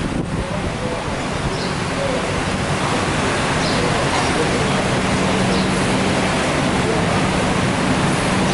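Steady rushing background noise, with a low steady hum coming in about halfway through.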